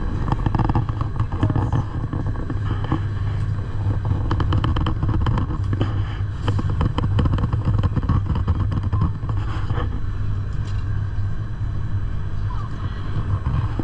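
Electric rack railway train of the Gornergrat Bahn running, a steady low hum with many small rattles and clicks over it.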